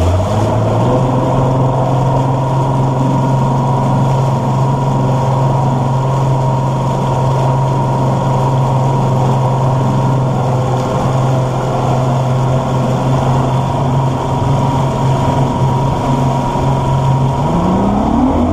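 Bass boat's outboard motor running at a steady cruising speed, its pitch settling just after the start; in the last second the engine revs up sharply as the boat accelerates.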